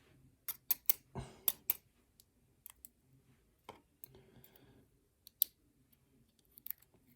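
Small metal clicks and taps as lock pins and a pick or tweezers are handled while a pin-tumbler lock is being taken apart. The clicks are irregular, with a cluster in the first two seconds and a single sharp click about five seconds in.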